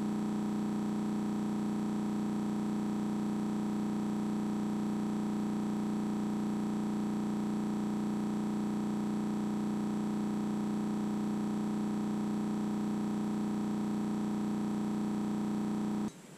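A held synthesizer chord: a steady, unchanging electronic drone with a strong low note, cutting off suddenly near the end.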